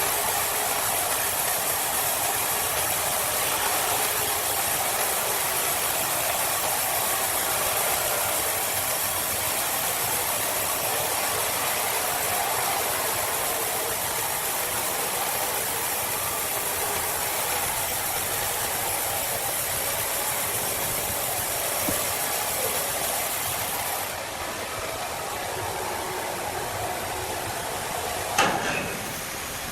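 An engine running steadily without revving, with one sharp knock near the end.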